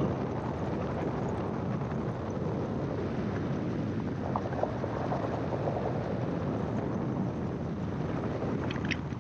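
Gyroplane in cruising flight: its engine and pusher propeller drone steadily.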